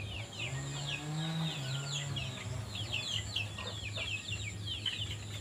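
Birds chirping busily: many short, high, falling chirps in quick succession, over a steady low hum. A low droning tone rises and falls during the first couple of seconds.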